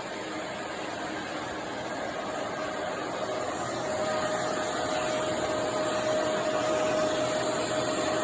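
Vacuum cleaner running steadily, a whine over its motor noise growing stronger and slightly louder about four seconds in.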